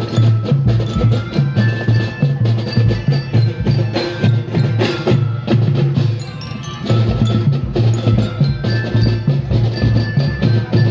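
Drum band playing: drums beating a steady pounding rhythm under a ringing mallet-bell melody, with a brief lull about two-thirds of the way through.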